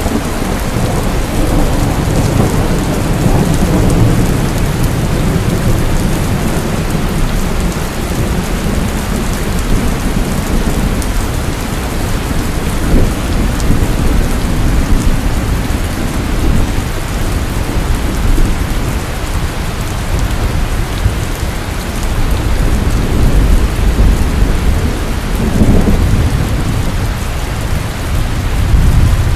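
Heavy rain pouring steadily, with thunder rumbling low beneath it. The rumble swells a couple of seconds in and again near the end.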